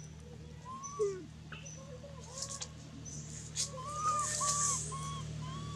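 Birds calling in a run of short, repeated arching notes that come faster and louder in the second half, over a steady low hum. Dry leaves rustle and crunch as the macaques scramble, loudest about four seconds in.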